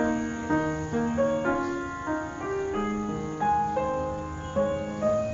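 Background piano music: soft chords and melody notes played at a gentle pace.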